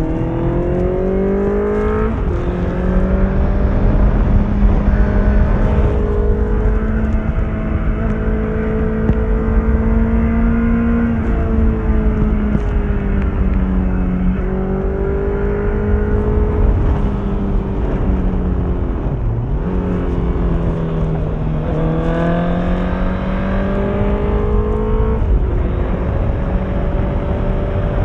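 Honda CBR650F's inline-four engine through an Akrapovic exhaust under way: revs climb and drop sharply at each upshift, hold steady while cruising, and fall briefly on a roll-off before pulling up again.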